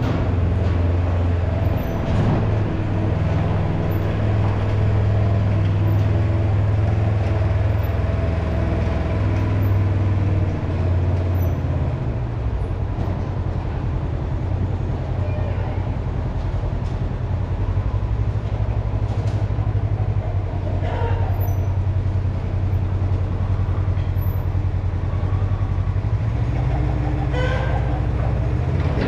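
Large farm engine, likely a tractor's, running steadily with a deep drone. It eases off a little about twelve seconds in, and a few light knocks come in near the end.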